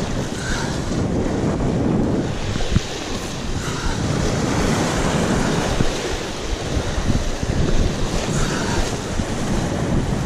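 Surf washing and breaking over shoreline rocks, a steady rushing wash, with wind buffeting the microphone.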